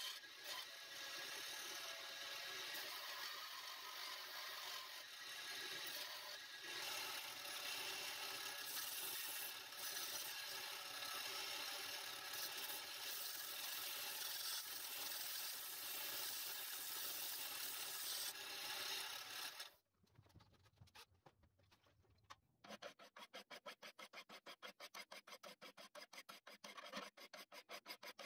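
Small bench belt grinder running as a steel bolt is ground against the belt, a steady grinding hiss. It cuts off abruptly about 20 seconds in, and after a short quiet stretch a hand file rasps across a piece of wood in quick, even strokes.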